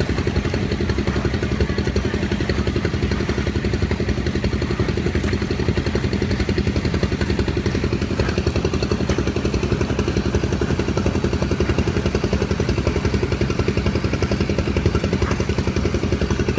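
A small engine running steadily at an even speed, with a fast, regular beat.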